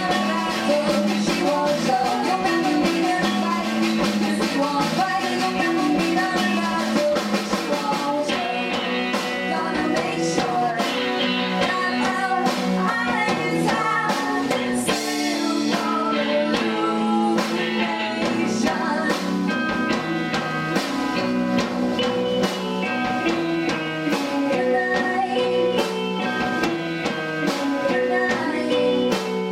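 Live indie rock band playing: electric guitars and a drum kit, with a woman singing. A cymbal crash rings out about halfway through.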